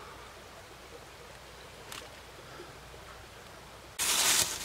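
Quiet outdoor background with a faint click about two seconds in, then a short, loud rustling noise near the end.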